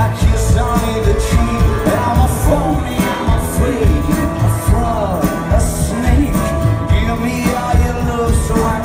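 Live rock band playing with a lead vocal: singing over electric guitar, bass and a steady drum beat, heard from within the crowd.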